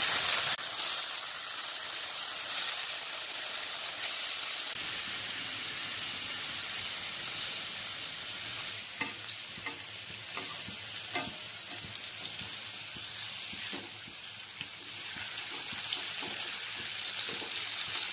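Marinated chicken leg pieces sizzling steadily in hot butter in a metal kadai. From about halfway a metal spatula scrapes and taps against the pan every second or so as the pieces are moved.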